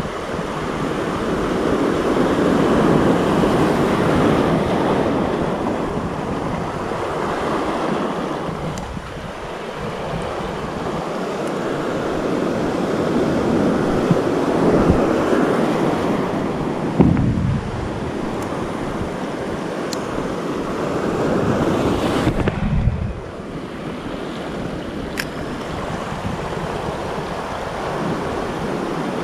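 Surf breaking and washing over a rocky reef shoreline, swelling and ebbing every few seconds, with wind rumbling on the microphone.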